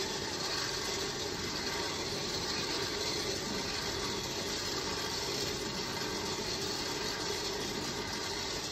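Barwell electric peanut roaster running, its motor turning the stirring arm as coffee beans tumble and rustle steadily in the lidded pan, near the end of a dark roast.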